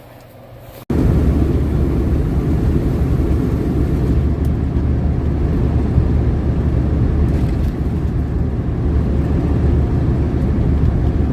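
Semi truck driving at speed: steady loud engine and road rumble, heavy in the low end, starting abruptly about a second in.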